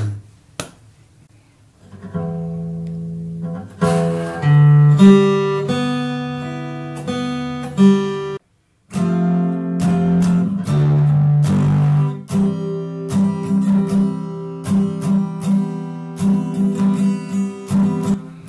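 Acoustic guitar music, plucked and strummed notes. It starts softly after a quiet first two seconds and breaks off briefly about halfway before carrying on.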